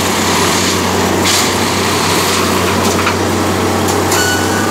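Plasser & Theurer Unimat 08-475 4S track tamping machine running steadily: its diesel engine and hydraulics hum loudly, with a brief hiss about a second in and a few short clicks near the end.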